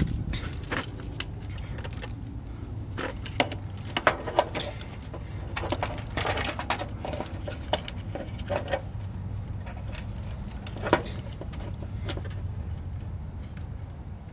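Irregular clicks and knocks of hands handling and fitting the parts of an AC hard start kit inside the unit, over a steady low background rumble.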